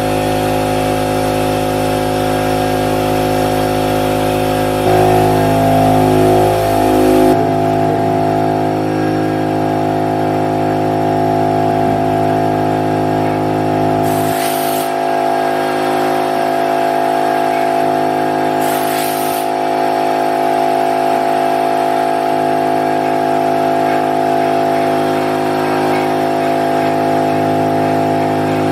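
Brother Speedio S700X1 vertical machining center running: its spindle gives a steady whine of several fixed tones, which warbles and shifts pitch about five to seven seconds in. Two brief bursts of noise come partway through.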